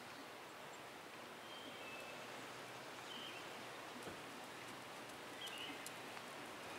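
Faint outdoor ambience: a steady hiss with a few short, high bird chirps scattered through it.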